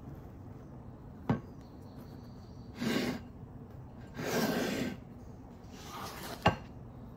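Bread rolls being pulled apart and handled on a ceramic plate: a sharp knock about a second in, two short rustling scrapes, and another sharp knock near the end as a wooden cutting board is set on the table.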